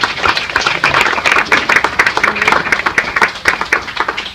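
A roomful of people applauding: dense, loud clapping that begins to die away near the end.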